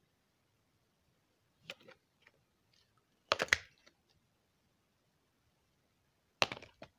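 Hard plastic packs of braided fishing line handled and shifted against each other, giving three short bursts of clicks and clacks. The middle burst is the loudest.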